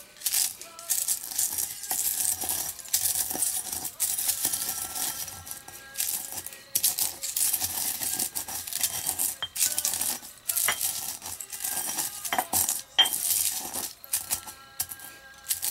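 Pestle crushing and grinding dried eggshells in a stone mortar: irregular crunching of the shells and gritty scraping of the pestle against the stone bowl.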